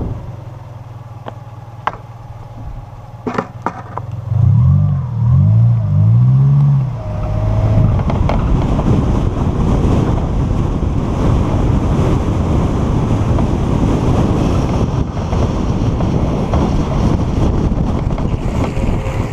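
Longboard wheels rolling on asphalt with wind rushing over the microphone during a fast downhill run, a dense steady noise that builds about seven seconds in. Before it comes a low hum with a few clicks, then a few seconds of loud rising and falling tones.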